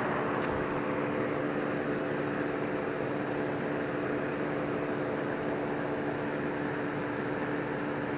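Steady mechanical hum: a constant drone of a few fixed tones over an even hiss, unchanging throughout, with a light click about half a second in.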